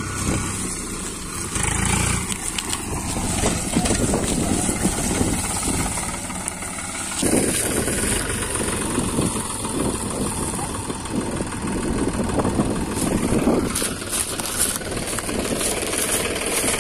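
Diesel tractor engine running steadily, with an abrupt change in its sound about seven seconds in.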